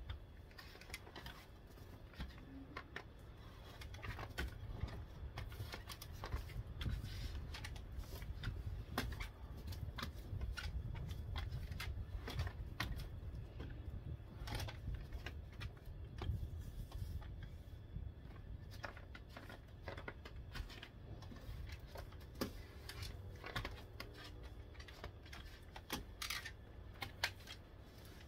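Snow brush sweeping and scraping snow off a pickup truck's windshield: irregular scrapes, brushing strokes and sharp taps, over a steady low rumble.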